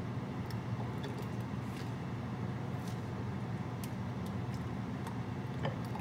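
A steady low mechanical hum, with a few faint clinks of a metal ladle against a stainless steel pot and a glass jar as grape juice is ladled out.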